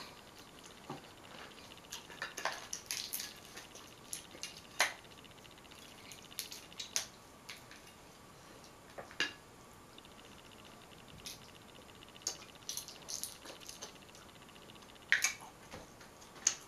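Crab legs being cracked and their shells pulled apart by hand, scattered sharp cracks and snaps with wet, sticky sounds of buttery shellfish, the loudest cracks coming near the end.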